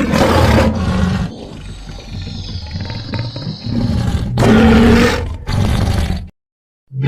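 Designed kaiju monster roars for Anguirus, deep and growling, in a string of separate calls a second or two long. Between the first roar and the next ones is a quieter stretch with thin falling whistle-like tones. A brief silence comes before a fresh roar starts right at the end.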